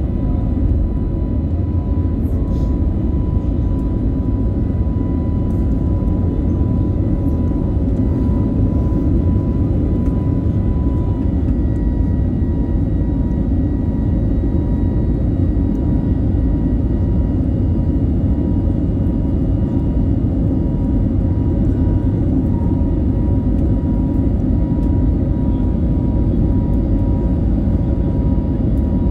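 Jet airliner cabin noise during the climb after takeoff: the engines and airflow make a steady, heavy low rumble, with a thin steady whine running through it.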